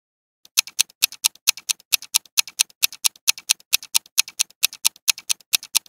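Countdown-timer ticking sound effect: a quick, even clock tick, about four ticks a second, starting about half a second in.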